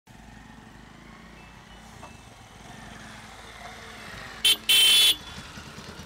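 Small motorcycle engine running steadily at low revs as it rides up. About four and a half seconds in, its horn sounds twice, a short beep and then a longer one, the loudest sound here.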